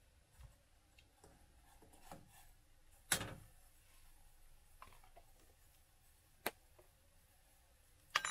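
Scattered knocks and clicks of things being handled in a small kitchen. The loudest is a knock with a low thump about three seconds in, with a sharp click at about six and a half seconds and another pair of clicks at the end.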